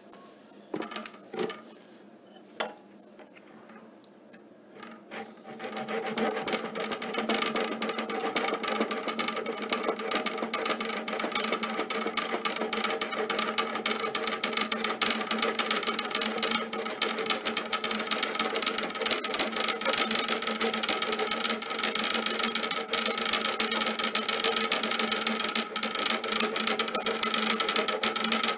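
Tactix miniature hacksaw cutting through an aluminium floor threshold, steady back-and-forth strokes of metal on metal. A few light knocks come first, and the sawing starts about five seconds in and runs on without a break.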